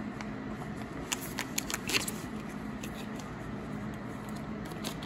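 Scattered light clicks and small rattles of hands handling small metal parts and tools, mostly a second or two in, over a steady low hum.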